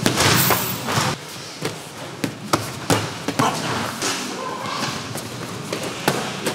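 Gloved punches and kicks landing in kickboxing sparring: an irregular string of sharp thuds, about ten over the stretch.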